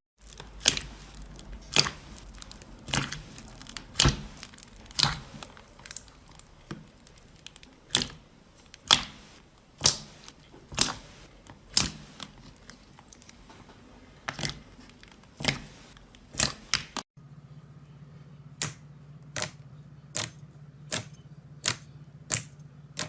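Slime being pressed and poked, giving sharp crisp clicks and pops about once a second. About two-thirds of the way in, it changes to a second take with a steady low hum under quicker clicks.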